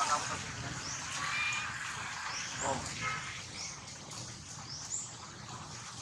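Birds chirping: short, high rising chirps about once a second over a steady outdoor background, with one lower call about two and a half seconds in.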